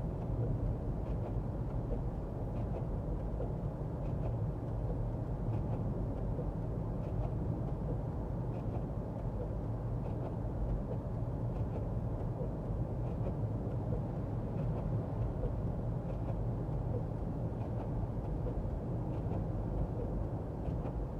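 Steady low rumble of a car's engine and tyres on a wet road, heard from inside the moving car, with faint soft ticks now and then.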